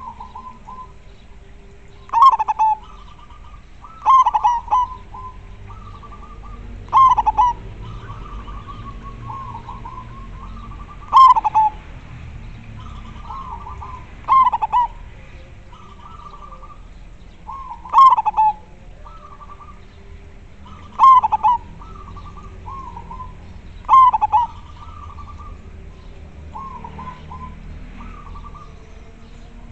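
Zebra dove cooing: eight loud, sharp-starting phrases come about every three seconds, each trailing off into quick rolling coos, with softer coos in between.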